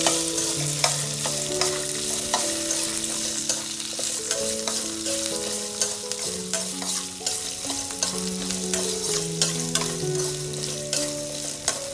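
Metal spoon stirring and scraping dry red chillies, garlic, curry leaves and whole spices as they fry in oil in a stainless steel kadai: a light steady sizzle with frequent clicks of the spoon against the pan.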